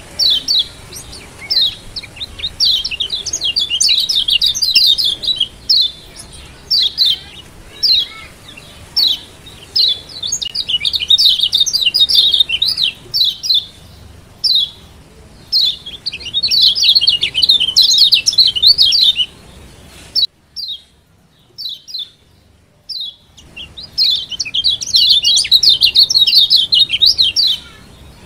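Lombok yellow white-eye (kecial kuning) giving sharp high 'ciak' calls: single chirps mixed with runs of fast chattering notes lasting a few seconds each. There is a pause of about three seconds past the middle.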